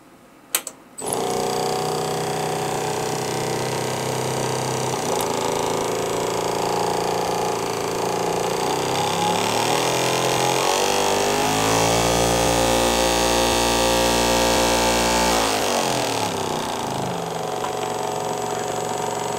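Brushed DC electric motor running with a steady whine, driving a second DC motor as a generator through a coupled shaft; it starts about a second in after two sharp clicks. About nine seconds in its pitch rises as the speed goes up, holds higher for a few seconds, then falls back about sixteen seconds in.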